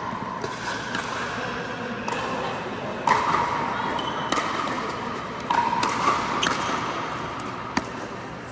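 Pickleball rally: half a dozen sharp pops at irregular intervals from paddles striking the hard plastic ball and the ball bouncing on the court, echoing in a large indoor hall.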